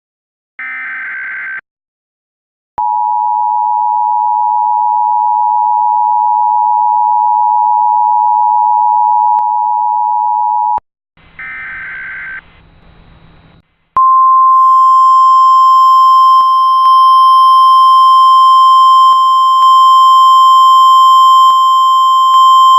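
Emergency Alert System tones. First comes the end of the warbling digital SAME header burst. Then the two-tone attention signal is held for about eight seconds, followed by another short buzzy data burst, and about a second in after that a loud, steady single tone near 1 kHz, the NOAA Weather Radio alarm tone, for about ten seconds.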